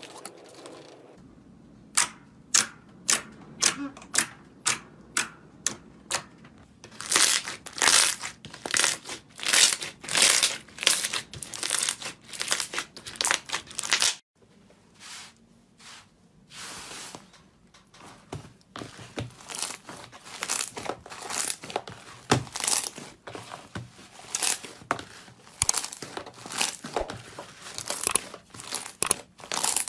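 Slime being squeezed and poked by hand, giving short crackling squishes and pops, evenly spaced about two a second at first, then coming thick and fast; it breaks off for a moment about 14 seconds in and resumes unevenly.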